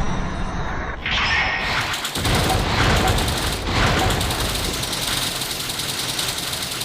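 Sound-effects mix of a continuous low rumble with crackling like booms and gunfire, breaking off briefly about one second and again about two seconds in.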